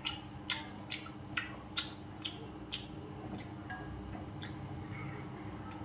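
A person chewing food with wet lip smacks, sharp clicks about two a second that thin out after about three seconds.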